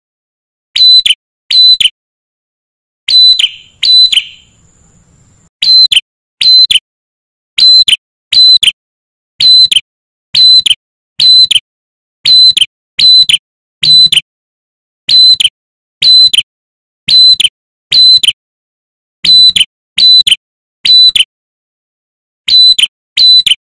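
Male ashy tailorbird calling: a loud, sharp, high note repeated about once a second, with a short pause about four seconds in.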